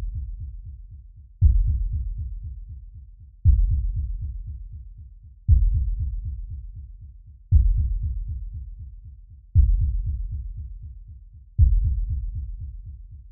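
Low suspense soundtrack: a deep bass hit about every two seconds, each a fast-pulsing low rumble that fades away before the next one starts.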